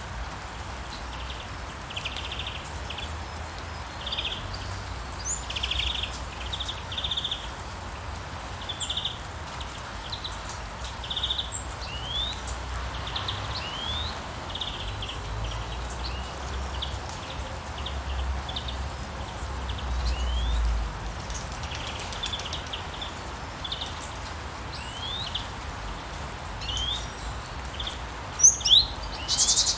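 Steady rain falling, with birds repeatedly chirping and giving short rising whistled notes over it, and a low rumble underneath. A louder burst of bird calls comes near the end.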